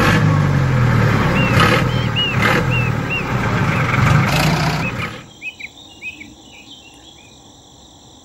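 Miniature DIY toy tractor's motor running steadily as it drives, cutting off about five seconds in. Birds chirp throughout.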